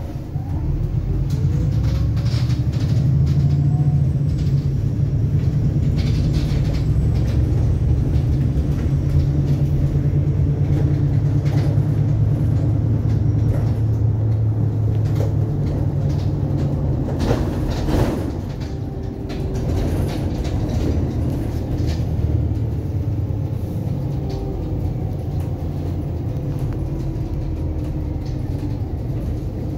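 VDL SB200 Wright Pulsar 2 single-deck bus on the move, heard from inside the saloon: a steady low engine and road rumble with frequent clicks and rattles from the body and fittings. It grows louder about a second in, eases briefly about two-thirds of the way through, then runs on steadily.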